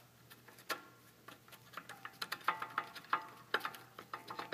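Irregular metallic clicks and taps of disc brake pads being worked out of a brake caliper, some taps ringing briefly.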